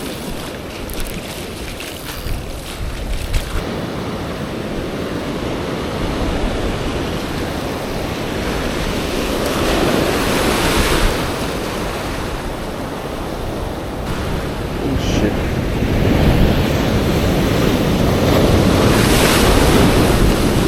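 Ocean swell breaking and washing over a rock ledge as heavy whitewater, with wind buffeting the microphone. The wash surges about halfway through and again, louder, near the end.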